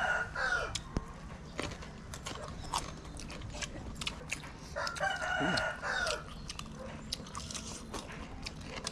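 A rooster crows twice, about five seconds apart, each crow a little over a second long. Scattered sharp clicks of people chewing crisp raw vegetables sound throughout.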